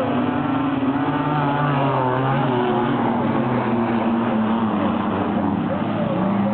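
Several wingless sprint car engines racing together, their pitch rising and falling as they come on and off the throttle.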